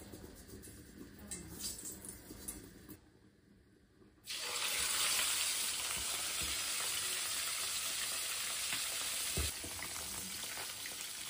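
Hot oil in a wok ticking faintly, then a whole yellow croaker sizzling loudly in the oil from about four seconds in, the hiss starting suddenly. A single knock sounds near the end, after which the sizzle is a little quieter.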